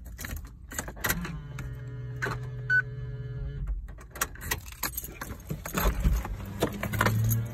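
Light clicking and rattling inside a car, with a steady mechanical hum lasting about two and a half seconds from about a second in, and another hum starting near the end.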